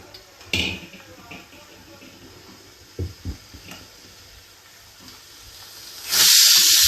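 Pressure cooker whistle going off: after a few faint knocks, steam suddenly jets out with a loud, steady hiss about six seconds in, a sign that the cooker has come up to full pressure.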